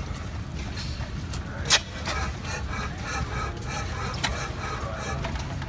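A steady low engine rumble with people talking in the background, and a sharp click about a second and a half in, with a lighter one later.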